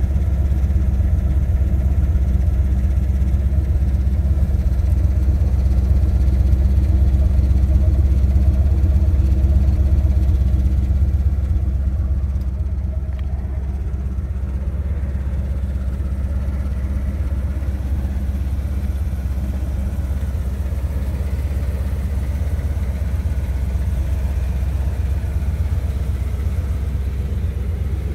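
1981 Chevrolet Corvette C3's carbureted 350 cu in V8 idling steadily. It is a little louder in the first ten seconds and somewhat quieter from about eleven seconds on.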